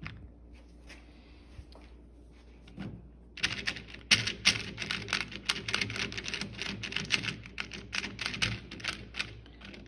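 Sockets rattling and clicking quickly against each other and their socket tray as the tray of sockets is shaken, starting about three and a half seconds in, after a few faint clicks; the sockets stay seated on the tray's posts.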